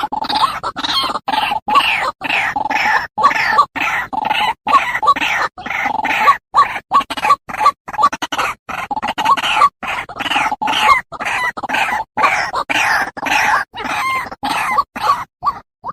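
White-breasted waterhen (ruak-ruak) calling: a fast, unbroken run of repeated notes, about three a second, cut by abrupt brief silences.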